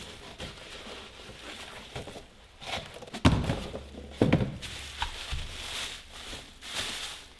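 A parcel being unpacked by hand: rustling and handling noises with two dull thuds about three and four seconds in.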